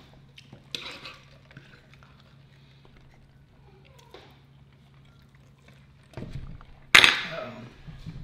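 Eating sounds at a dinner table: quiet chewing and small clicks of cutlery, then a sharp, ringing clink of tableware against the hard tabletop or a plate about seven seconds in.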